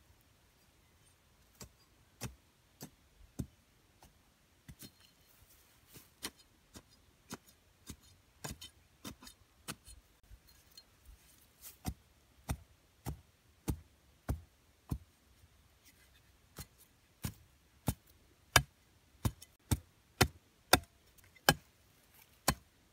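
A curved bush knife striking again and again at the base of a wooden post in dry dirt: sharp knocks, scattered at first, then coming about twice a second and getting louder about halfway through.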